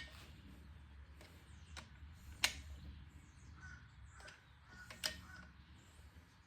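Sharp single clicks of a torque wrench as the camshaft bearing cap bolts on a Ford 4.6 4V cylinder head are tightened to 90 inch-pounds. The two loudest come about two and a half and five seconds in, with a few fainter clicks between.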